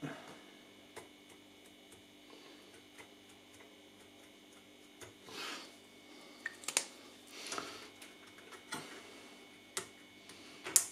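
Scattered light clicks and short rustles of hands working on a stereo amplifier's chassis and wiring during disassembly, with a sharper click near the end. A faint steady hum underneath.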